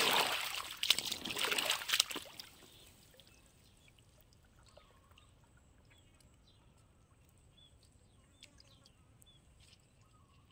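Rubber boots wading and sloshing through shallow, muddy canal water for about two seconds, stopping abruptly; afterwards a faint background with a few short bird chirps.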